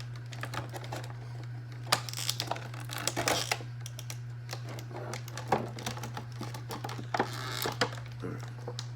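Plastic action-figure packaging being handled and pried at: irregular sharp clicks, taps and crinkles as the figure is worked out of its plastic tray, over a steady low hum.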